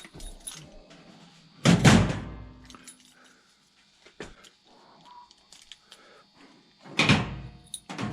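A cabinet door and its lock being handled: two loud thumps, one about two seconds in and one near the end, with small clicks and rattles between.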